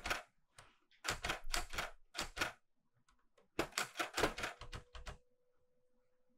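Keystrokes on a Clover 810S manual typewriter with a Korean Hangul keyboard: type bars strike the platen in quick clattering runs, a couple of strokes at the start and then two bursts of typing. The typing stops about five seconds in.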